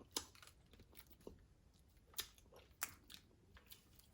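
Faint eating sounds: chewing with about half a dozen short, sharp clicks and crunches scattered through, the two loudest between two and three seconds in.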